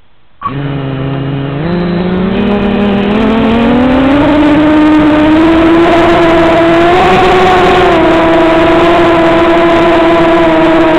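A motor starting abruptly and speeding up, its whine rising steadily in pitch for about four seconds, then running at a steady high pitch.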